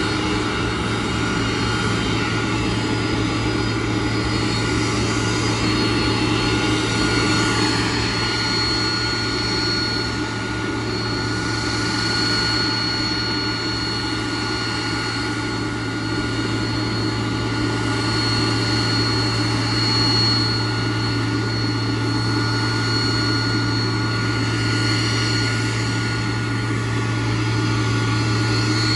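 Boeing 747-400 Dreamlifter running on the ground as it is towed by a tug: a steady low hum with a thin, constant high whine.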